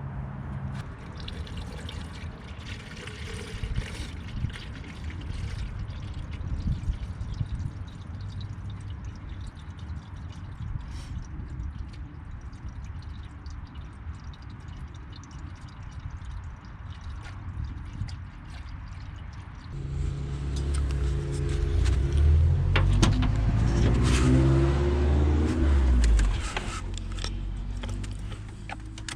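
A steady low rumble and wash of noise. About twenty seconds in, a car engine comes up louder, rising in pitch for a few seconds, then drops off sharply about six seconds later.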